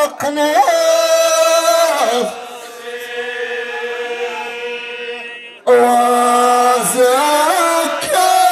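Amazigh ahwach chanting over a loudspeaker: a man's voice sings a long, wavering line. About two seconds in it drops to a quieter held tone. Past the middle, loud chanting comes back in suddenly.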